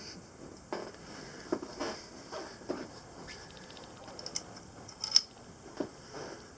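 Small metal clicks, knocks and scrapes of hand tools and scope-ring parts being handled while the ring screws are worked on, with a brief run of fast ticks a little over three seconds in and a sharp click about five seconds in.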